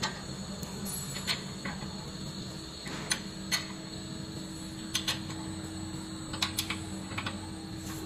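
Irregular metallic clicks and clinks of a hex key working a levelling bolt under a machine's steel cabinet, some in quick pairs, over a steady low hum.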